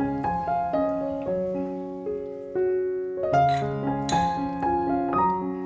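Background piano music: a gentle melody of single notes over simple chords. About halfway through it is joined twice by a brief hissing kitchen noise.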